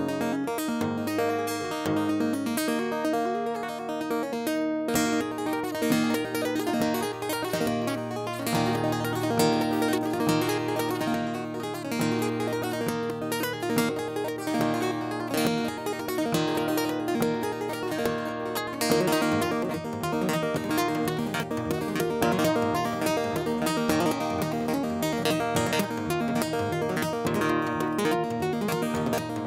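Solo acoustic guitar played live as an instrumental, with a quick run of plucked notes over a low bass line and a brief pause about five seconds in.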